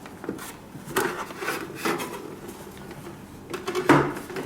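Treadmill console display panel being pressed back into place: scattered clicks, knocks and rubbing, the loudest knock near the end.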